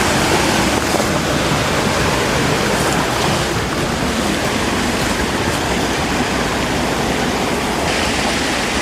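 Creek water rushing and cascading into a pool: a loud, steady roar of falling water.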